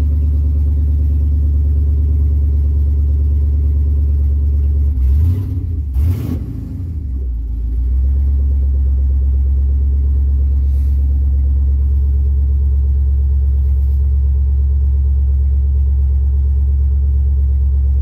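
5.3 LS V8 engine of a 1967 Clark Cortez running with a steady low drone, heard from inside the cab. About five to six seconds in the note shifts briefly, with a couple of short knocks and a short dip in level, then the steady running resumes.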